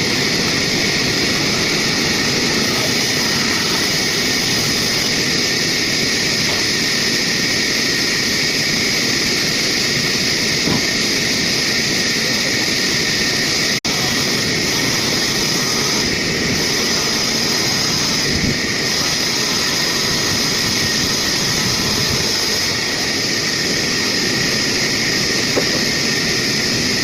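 Heavy-duty sawmill saw (aara machine) running steadily through wood, a loud rushing machine noise with a constant high whine. The sound drops out for an instant about halfway.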